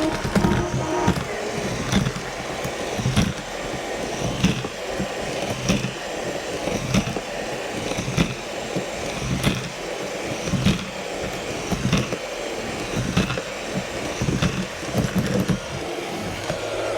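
Eufy RoboVac 30C robot vacuum running, a steady whir of motor, brushes and wheels with a regular knock a little more than once a second.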